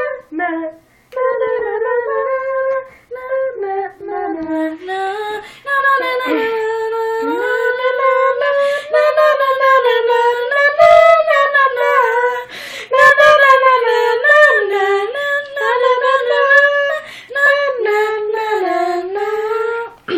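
A girl singing unaccompanied: a wordless melody of long held notes with slides between them, broken by short pauses for breath.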